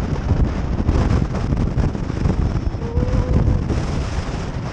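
Strong gusty wind buffeting the microphone: a loud, uneven low rumble and flutter throughout.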